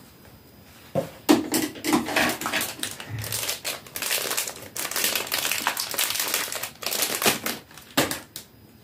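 A small foil wrapper crinkling and rustling as it is handled and opened by hand, starting about a second in and dying away near the end.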